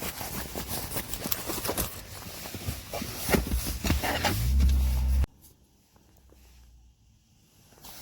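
Irregular crunching and knocking in deep snow, like boots and hands working through it. It ends in a brief low rumble that cuts off abruptly about five seconds in, leaving near quiet.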